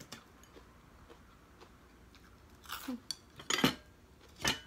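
Plates and bowls clinking and knocking a few times on a dining table as food is handled, in three short clusters over the last two seconds, the loudest about three and a half seconds in.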